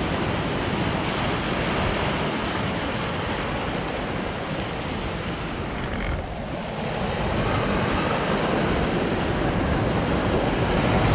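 Sea surf breaking and washing over shore rocks, a steady rushing wash, with wind buffeting the microphone.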